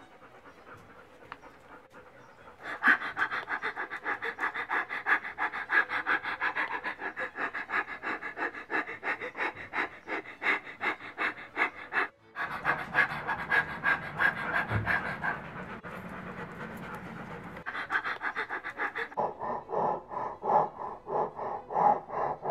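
Wolfdog puppy panting fast and evenly, tongue out, starting about three seconds in, with a brief break a little past the middle.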